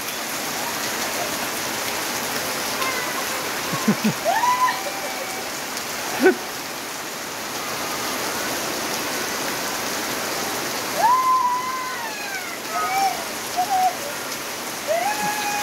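Steady rain falling on grass, a concrete path and a roof, water running off the roof edge. A few short high-pitched calls sound over it: about four seconds in, around eleven seconds, and near the end.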